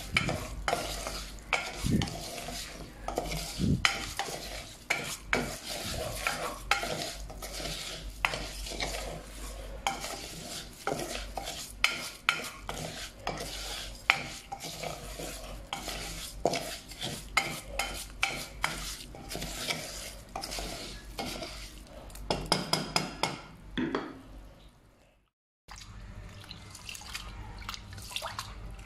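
Wooden spoon stirring and scraping raw rice grains in hot oil in a pot, with a light sizzle: the rice is being toasted before water goes in. After a short break near the end, a hand swishes rice in a bowl of water.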